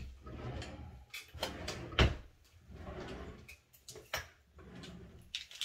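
Rummaging in a bathroom cabinet: rustling and things knocking about, with a sharp knock about two seconds in and another about four seconds in.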